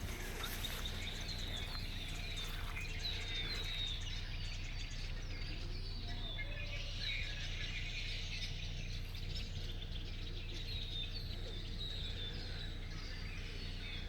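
Wild birds calling near a creek: many short, high chirps, each sliding downward in pitch, repeated throughout over a steady low rumble.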